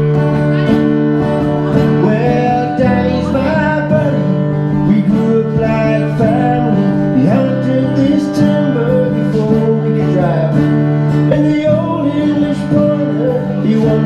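A song played solo on strummed acoustic guitar, the chords changing every few seconds, with singing over parts of it.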